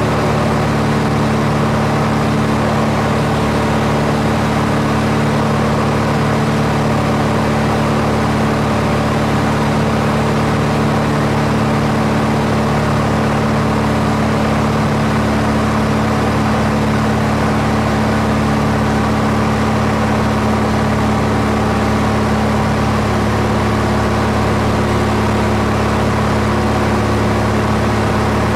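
Steady drone of an aircraft's engine, a low hum with several even tones over a broad hiss.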